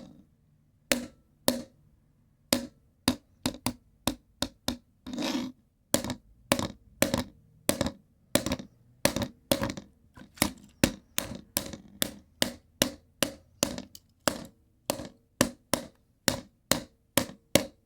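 Hard plastic remote control being knocked repeatedly: a long run of sharp knocks, spaced out at first, then coming about two to three a second from around the middle on.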